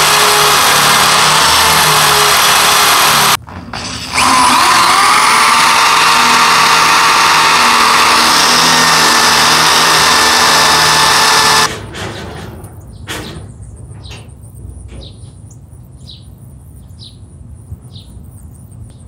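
Corded electric drill boring through the metal frame of a trailer tailgate, its motor running at a steady whine. It runs for about three seconds, breaks off briefly, then runs again for about seven seconds before stopping.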